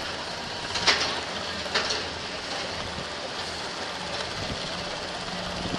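Suspended looping roller coaster train heard from a seat on board as it moves along the track: a steady rumble with two sharp clacks, about a second and about two seconds in.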